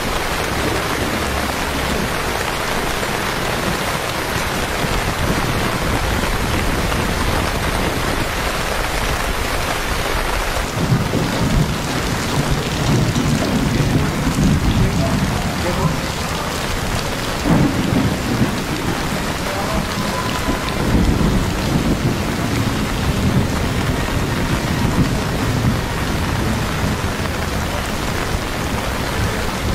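Steady heavy rain falling on the street and pavement. From about eleven seconds in, irregular low rumbles come and go over the rain.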